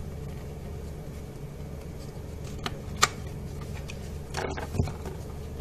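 A small cardboard manual folder being handled and opened by hand: a faint click and then a sharp snap about three seconds in, followed by a brief papery rustle near the end, over a steady low hum.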